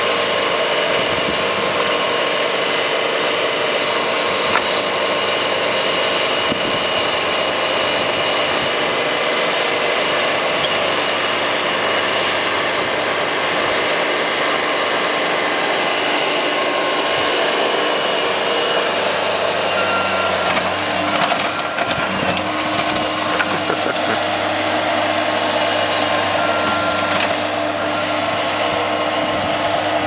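Skid-steer loader engine running hard with a steady whine; its low note shifts after about twenty seconds.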